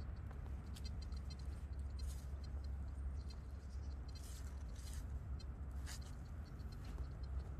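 Fingers scraping and rustling in loose soil and dry leaves while an old coin is lifted out, a handful of short scratches over a steady low rumble.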